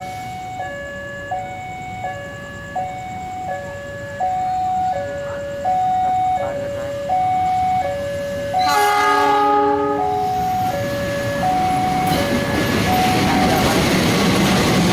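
Level crossing warning alarm sounding its alternating two-tone signal, high then low, switching roughly every three quarters of a second. About 9 s in a diesel locomotive gives one horn blast of several tones together, lasting about a second and a half, and from about 12 s the noise of the approaching train builds as it reaches the crossing.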